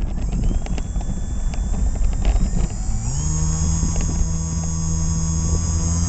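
Wind rushing past a GoPro mounted on a Hobbyzone Aeroscout S RC plane, with scattered clicks, then about three seconds in the plane's electric motor and propeller rise a little in pitch into a steady hum.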